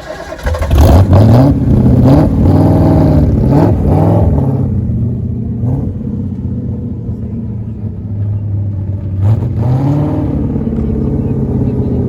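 1969 Ford Falcon XW GTHO's V8 being blipped: the revs rise and fall several times in the first few seconds, settle to a steady idle, then rise again twice near the end.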